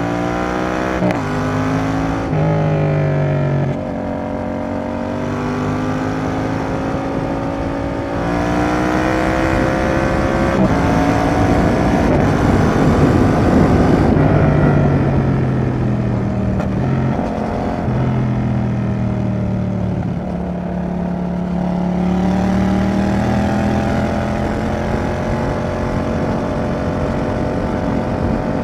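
Yamaha XSR700's 689 cc parallel-twin engine through a Roadsitalia aftermarket exhaust, accelerating hard with rising pitch and dropping back at quick gear changes. Midway the engine note is half-buried under a rushing noise, then the pitch falls slowly as the bike slows and climbs again near the end.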